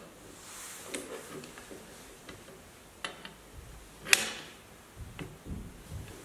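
Hand tools on the bolts of a zinc-plated steel suspension spring plate: a ratchet and socket turning a nut while an adjustable wrench holds the bolt. Separate sharp metal clicks and taps come about once a second, the loudest about four seconds in.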